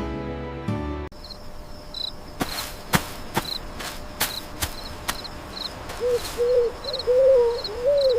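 Crickets chirping in a steady, repeating rhythm of high chirps, with several sharp clicks in the middle and a wavering call from about six seconds in. Music cuts off about a second in.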